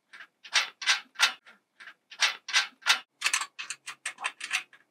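Ratchet wrench clicking in short runs as it tightens a 3/8-inch bolt at a greenhouse frame joint; the clicks come quicker in the second half.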